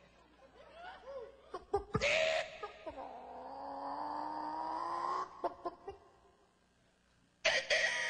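A man's voice giving wordless cries and shouts, including one long held call that rises slightly in pitch, with a sudden louder outburst near the end.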